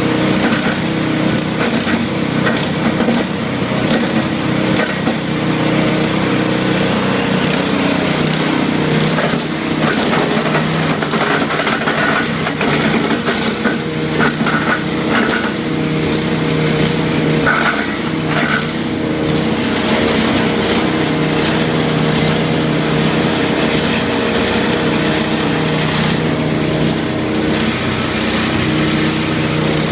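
13 hp wood chipper engine running steadily, with repeated cracking and crunching as wood is fed through and chipped.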